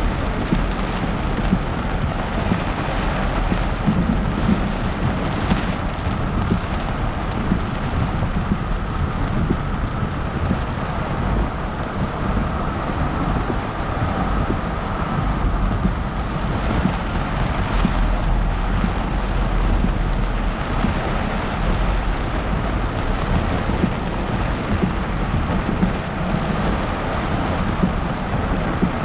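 Heavy rain coming down in sheets on a moving car, heard from inside the cabin as a steady dense hiss over road noise. A deeper low rumble swells for a few seconds about halfway through.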